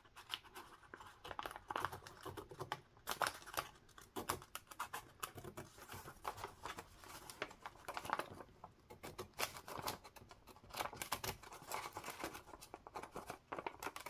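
Scissors cutting a slit through a folded sheet of paper: a long run of short, irregular snips and clicks.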